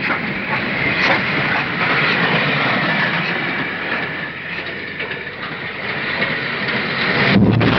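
Steam train running on the rails: a steady rushing rumble with faint irregular clicks of wheels on track, heard through an old, narrow-band film soundtrack. A heavier low thump rises about seven seconds in.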